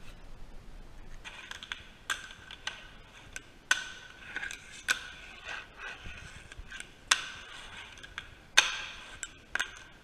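Fingerboard rolling on wooden ramps and a wooden desk: the wheels give a steady rasp, broken by about half a dozen sharp clacks of the deck and trucks landing, the loudest near the middle and about a second before the end.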